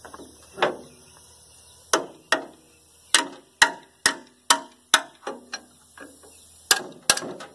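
Sharp metallic clicks from a 3/4-inch-drive ratchet turning a gear puller to draw the harmonic balancer off an engine's crankshaft. A few scattered clicks at first, then a steady run of about two a second from about three seconds in.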